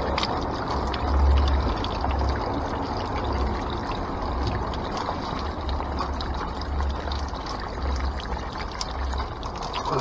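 Spring water running from a rock outlet into a plastic funnel and bottle and splashing onto a metal grate below, a steady pouring wash, with a deep rumble coming and going beneath it.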